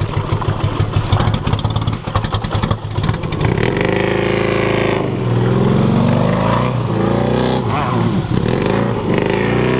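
Ural sidecar motorcycle's flat-twin engine, first running at low revs with a clear, even beat, then revved hard about three seconds in and held high, its pitch rising and falling. The bike is trying to drive itself out of deep mud while it is pushed.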